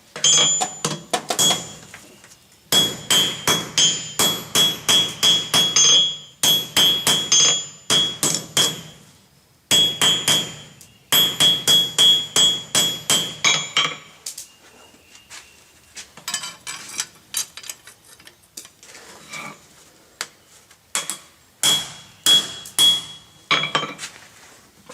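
Blacksmith's hand hammer striking a hot steel Allen wrench blank on an anvil to straighten it. The blows come in runs of about three a second, each with a high ringing. They turn lighter and sparser in the second half.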